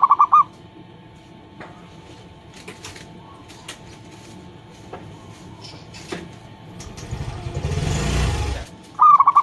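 Zebra dove (perkutut) cooing: a short run of quick staccato notes right at the start and again near the end. Between them a passing vehicle's engine rumble swells for a couple of seconds and stops just before the second coo.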